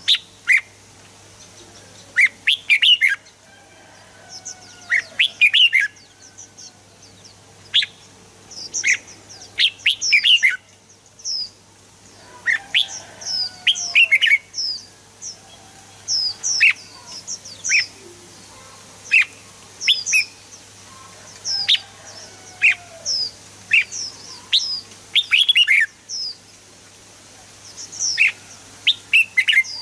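Red-whiskered bulbul song: bursts of short, sharp chirps and quick falling whistled notes, coming in irregular clusters, over a faint steady hum.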